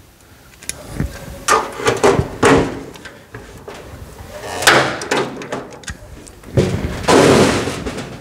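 Hand pop-rivet tool setting rivets through thin aluminum floor sheet: a series of sharp snaps and knocks, with a longer clattering noise near the end.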